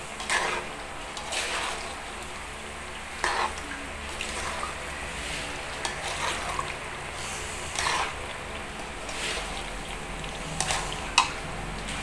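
Bananas frying in hot oil with caramelizing sugar in a metal wok, a steady sizzle, while a metal spatula scrapes and turns them against the pan every second or so, with one sharp clink near the end.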